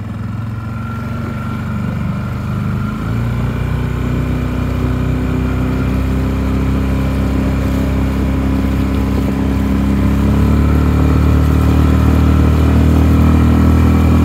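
Outboard motor pushing an inflatable boat, running steadily and speeding up, growing louder with a slight rise in pitch over the run.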